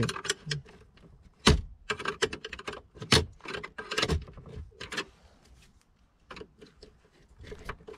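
Irregular clicks and taps of a screwdriver working screws on the metal dashboard frame and plastic cup holder assembly, with two sharper knocks about a second and a half and three seconds in; the clicking grows sparser in the second half.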